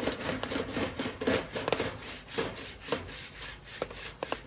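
Popcorn kernels popping in a Coleman campfire popcorn popper over a fire: many irregular sharp pops over the sizzle of hot oil.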